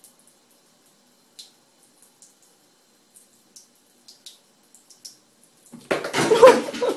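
A cat in a ceramic bathroom washbasin: faint, irregular small ticks, then near the end a loud scuffling burst about a second long as it jumps out of the basin.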